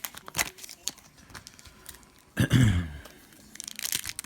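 Trading cards being handled and flipped, with scattered small clicks, and a foil card-pack wrapper crinkling near the end. About halfway through comes one loud, short vocal sound from the person that falls in pitch.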